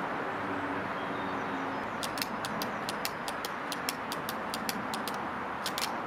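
Steady outdoor background noise. From about two seconds in, a rapid run of sharp ticks comes in, roughly five a second, ending with a close pair.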